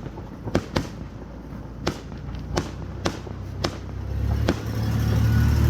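Fireworks going off, about seven sharp bangs at irregular intervals. A low rumble builds from about four seconds in and is loudest near the end.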